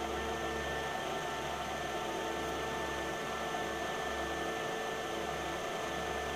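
Steady low electrical hum with an even hiss.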